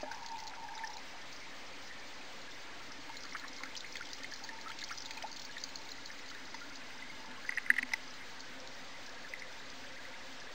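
Water trickling and pouring steadily into a garden pond, heard muffled through a camera held underwater, with a short cluster of sharp clicks about three quarters of the way through.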